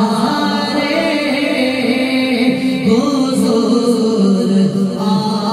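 A man singing a naat, a devotional song in praise of the Prophet, into a microphone. The melody flows on with long held and wavering notes, and no instruments can be heard.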